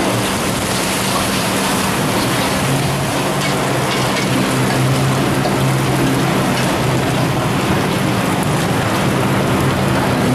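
Eggs frying in a wok of hot oil: a loud, steady sizzle and crackle, with a low hum underneath.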